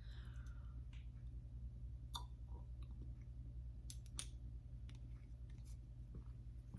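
A quiet room with a steady low hum and a handful of faint, scattered clicks from a herbal tincture dropper bottle being handled as a dose is taken under the tongue.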